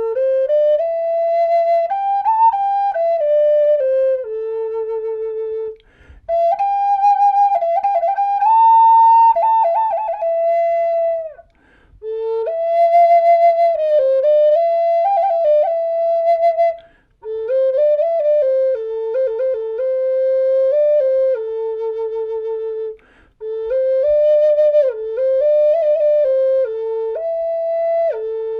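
High Spirits Signature Nature's Art Native American flute in the key of A minor, made of madrone burl and walnut, played solo as a slow melody in five phrases with short breath pauses between them. The tone is clean and clear, with a few quick ornamented notes.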